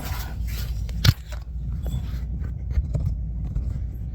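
A sharp knock about a second in, then a few lighter clicks and scrapes of handling, over a low steady rumble.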